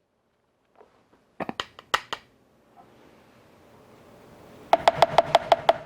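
Small metal measuring spoon tapping against containers while tara gum powder is measured out: a few sharp clicks, then near the end a quick run of about ten ringing taps.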